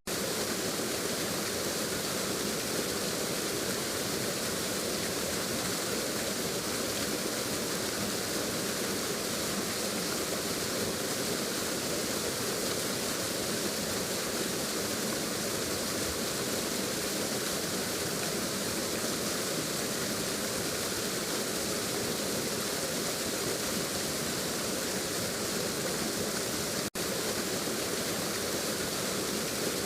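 Waterfall: a steady, even rush of falling water, with a momentary dropout near the end.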